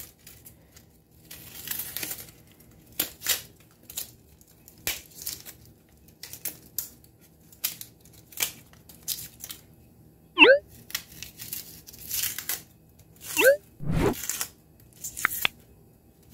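Dry red onion skin crackling and tearing as it is peeled off with a knife and fingers, in short irregular bursts. Two brief rising squeaks come about ten and thirteen seconds in, with a dull thump just after the second.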